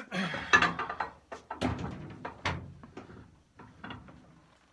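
Shoe being set into a cobbler's sole press and the press's mechanism worked: a string of irregular clunks and clicks, some with a short ring.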